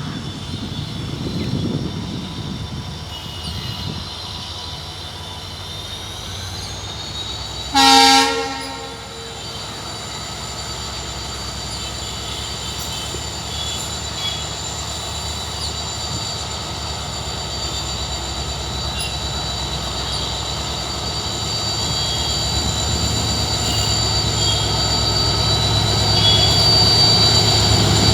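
WDP-4D diesel locomotive with its EMD two-stroke V16 humming as it notches up and accelerates, a steady high whine over a low engine note that grows louder toward the end. One short horn blast about eight seconds in is the loudest sound.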